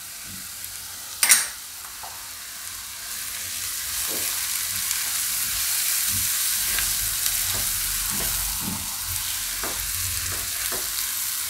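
Chopped green garlic and green chillies sizzling in ghee in a non-stick kadai, with one sharp tap about a second in. From about three seconds in, a silicone spatula stirs the mix with short scraping strokes and the sizzle grows louder.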